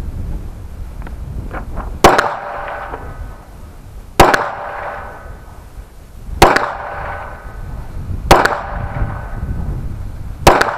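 Five 9 mm shots from a Smith & Wesson M&P pistol, fired about two seconds apart. Each shot has about a second of ringing after it. The steady spacing is slow aimed fire at 25 yards.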